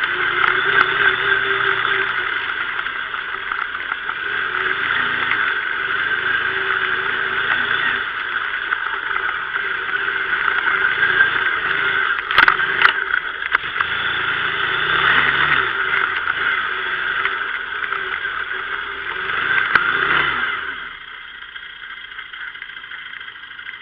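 Kymco MXU 500 quad's engine running offroad, its sound swelling and easing with the throttle, with one sharp knock about halfway. Near the end it drops to a quieter, steady run.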